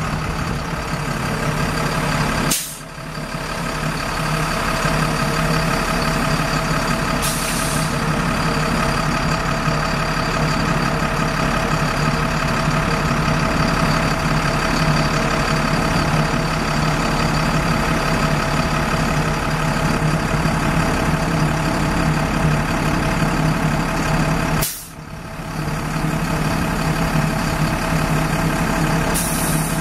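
The International DuraStar 4400's six-cylinder turbo diesel runs steadily with the PTO engaged, powering the hydraulics that move the bucket boom. Two short hisses cut in, about seven seconds in and again near the end.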